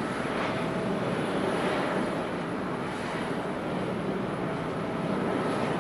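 Airbus A350-941's Rolls-Royce Trent XWB turbofan engines running, a steady, even rush of jet noise with faint steady tones in it.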